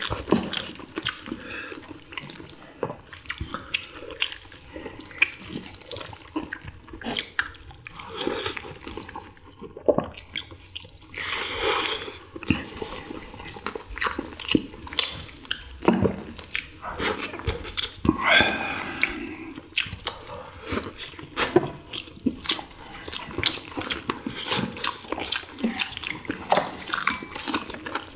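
Close-up eating sounds of boiled chicken: irregular chewing, biting and wet mouth and lip smacking from several people, with a couple of longer, louder wet sounds partway through.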